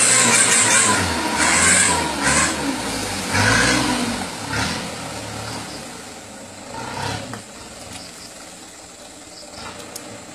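Truck engine revving hard under load in deep mud, its pitch rising and falling several times, then fading as the truck drives away.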